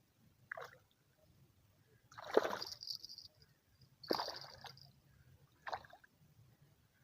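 Water splashing and sloshing in four separate bursts, the second and third the loudest and longest.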